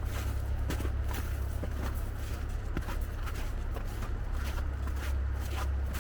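Footsteps of a person walking on a wet, snow-covered sidewalk, a step every half-second to second. A steady low rumble runs underneath.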